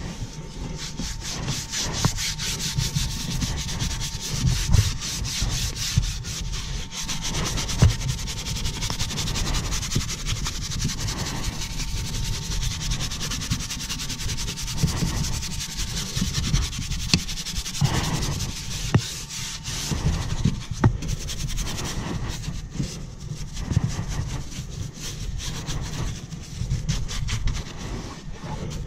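Continuous irregular scrubbing and rubbing against a surface, with small knocks here and there and a faint steady whine through about the first two-thirds.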